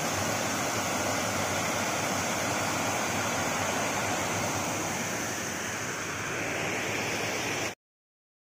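Water pouring and splashing over a low weir, a steady rush that cuts off abruptly near the end.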